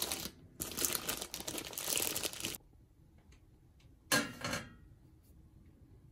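Plastic bread bag crinkling for a couple of seconds as a slice of rye bread is handled, then a short clatter about four seconds in as the slice is set down on a perforated stainless-steel toasting plate.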